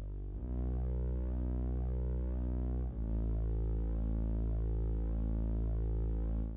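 Electronic drone music: a low, sustained chord of steady tones with a slow pulsing, changing chord about half a second in and again about three seconds in, fading away at the very end.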